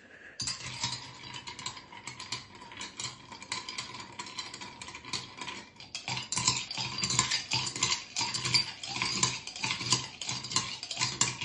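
Ice cubes stirred in a drinking glass with a metal bar spoon to chill the glass: a continuous rattle of ice and spoon clinking against the glass, louder from about halfway.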